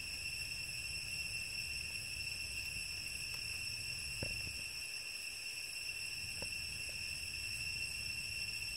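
Steady high-pitched insect drone from crickets or cicadas, unchanging throughout, with a couple of faint taps about four and six and a half seconds in.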